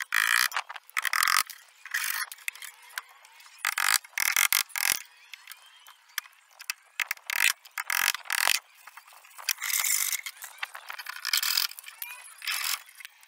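Hand tools working pallet wood: irregular rasping, scraping strokes, roughly one a second with short pauses between them.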